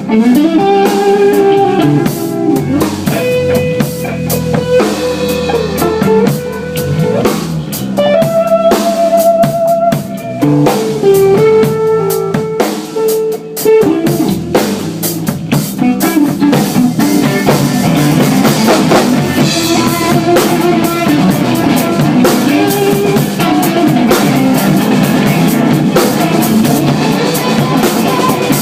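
Live band playing: a drum kit keeps the beat under guitar, with a held melodic lead line stepping between long notes in the first half and a denser, fuller passage from about halfway on.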